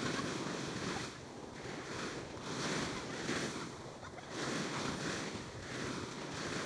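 Small ocean waves breaking and washing up a sandy beach, the surf rising and falling in several swells.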